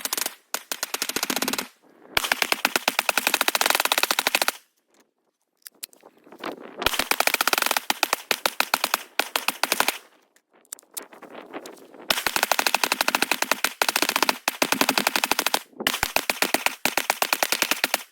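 Colt AR-15 rifle firing long rapid strings of shots, roughly a dozen a second, in sustained fire meant to overheat it to failure. The strings stop for a second or two twice before firing resumes.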